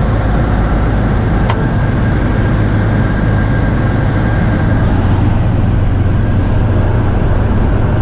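Aeroprakt A22 ultralight's engine and propeller running steadily in flight, a loud, even drone heard from inside the cockpit.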